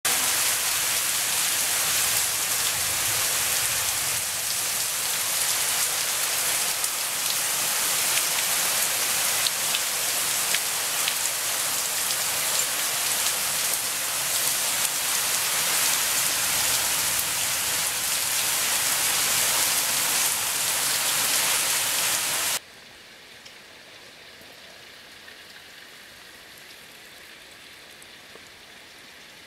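Torrential rain hissing steadily as a heavy downpour. About three-quarters of the way through it cuts suddenly to a much fainter rain hiss.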